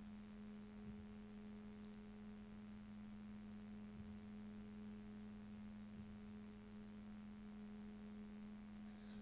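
Near silence with a faint steady low hum.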